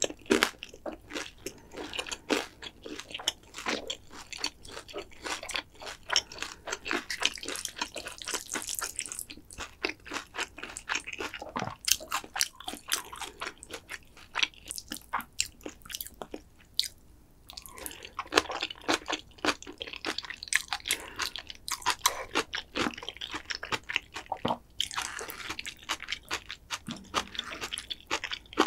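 Close-miked chewing of thick jajangmyeon (black bean noodles): a long run of quick, wet mouth clicks, with a brief lull about two-thirds of the way through and two denser, noisier stretches, one about a third of the way in and one near the end.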